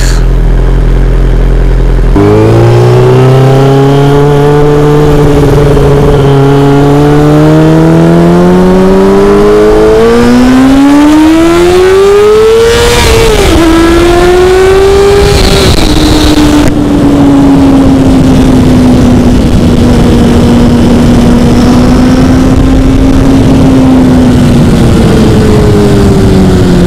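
Motorcycle engine pulling away from a stop and accelerating: its note climbs steadily for about ten seconds, dips sharply at an upshift, climbs again, then settles after another shift into a steady cruise and falls away near the end as the throttle closes. Heavy wind noise on the unshielded microphone runs underneath.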